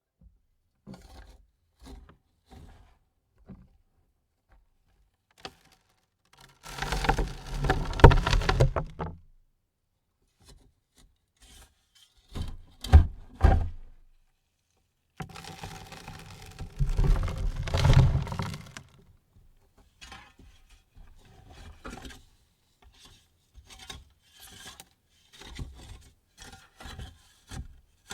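Dirt thrown onto a wooden coffin lid: two heavy loads land, about 7 and 15 seconds in, each pattering and sliding for a few seconds. Shorter thuds come around 13 seconds in, with scattered light patters of soil and small clods between.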